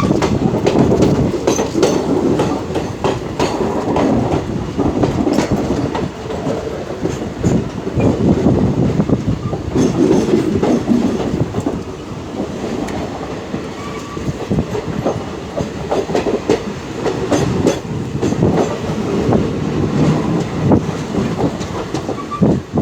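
Passenger train running on the line: a steady low rumble and rattle, with the clickety-clack of wheels over rail joints.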